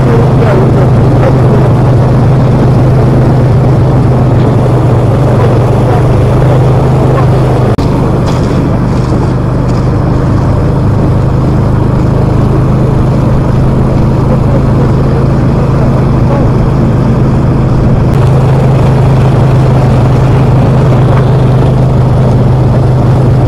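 Snowmobile engine running steadily at travel speed, a loud unbroken drone heard from the cargo sled it is towing. Its pitch drops slightly about eight seconds in and rises again near eighteen seconds.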